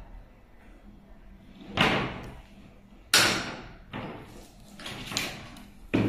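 Pliers cutting a fibre-optic cable's strength member and hand tools knocking down on a table: a handful of sharp clacks and snaps, the loudest about three seconds in and another just before the end.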